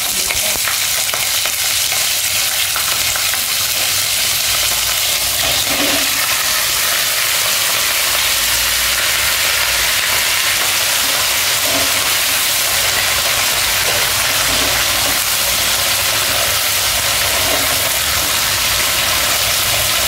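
Yardlong beans, potato and spiny gourd pieces sizzling in hot oil in a wok: a steady, loud frying hiss, with a spatula stirring the vegetables.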